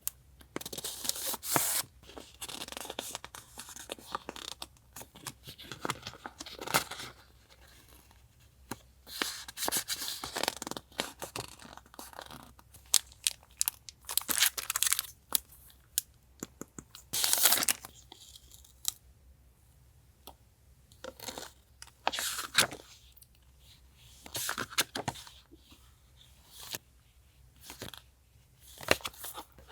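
Paper and sticker sheets handled close to the microphone: repeated bursts of rustling and tearing, with sharp paper ticks between them.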